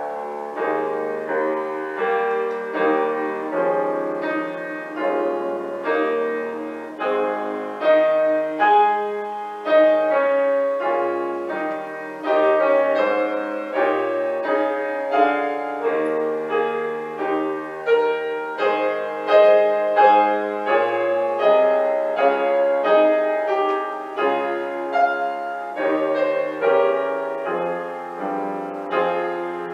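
Solo piano playing a chordal piece, notes and chords struck one after another and left to ring.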